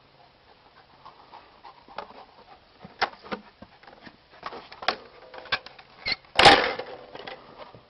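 Irregular knocks and clicks of wooden boards being moved and bumped, coming more often after the first couple of seconds, with one louder rustling knock about six and a half seconds in.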